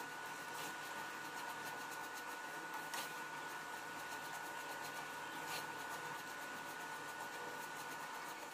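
Faint steady hum with a thin high-pitched whine, and a few soft scrapes of a silicone spatula stirring dry-roasting semolina in a nonstick pan.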